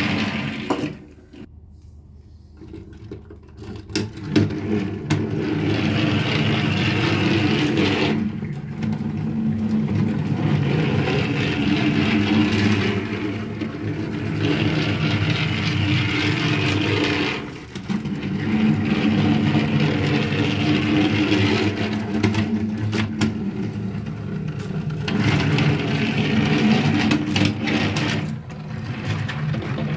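Small electric motor of a toy train whirring steadily, with scattered clicks. The whirr drops away for a few seconds about a second in, then dips briefly several more times.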